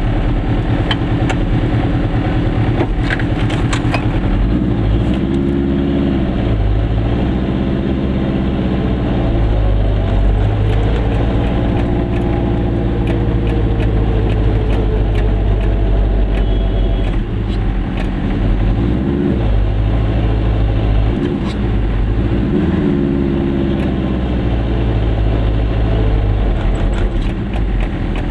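Goggomobil's two-stroke twin-cylinder engine heard from inside the car, its pitch rising and falling several times as it speeds up and drops back in slow driving that is hard on the clutch.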